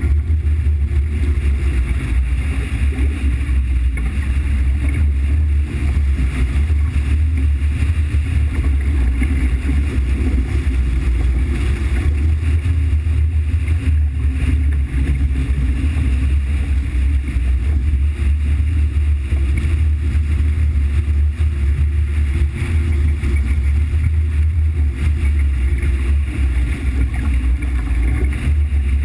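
Steady, loud low rumble of a running vehicle, with wind noise on the microphone.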